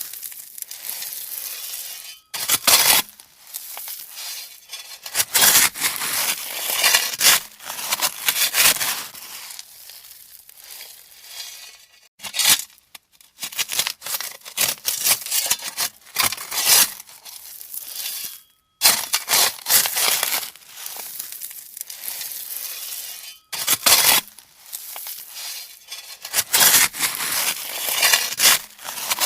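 A shovel scraping into gravel and tossing it, over and over, as gritty crunching strokes about every second or two with brief pauses between groups of strokes.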